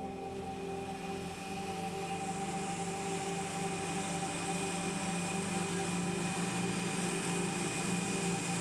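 Turbofan engines of a Cessna 525A CitationJet CJ2 business jet running with a steady whine and rushing hiss, growing gradually louder.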